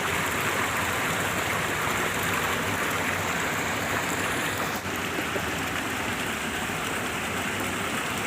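Steady rush of flowing water, even and unbroken apart from a short dip about five seconds in.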